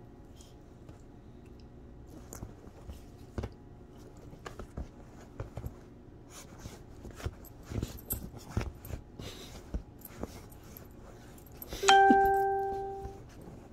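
Small Pomchi dog playing on a fabric couch: soft scattered scratches, rustles and clicks of paws and fur against the cushions and a hand. Near the end a single loud bell-like ding rings out and fades over about a second.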